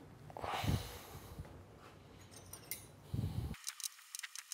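Handling noises of a heavy electric motor on its metal mount being set down and shifted on a steel table: a dull thump under a second in and another around three seconds in, then a run of light clicks and taps near the end.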